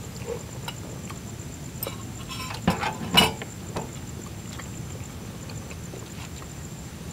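Spoons and forks tapping and scraping on metal camping plates as people eat, with a few louder clinks about three seconds in.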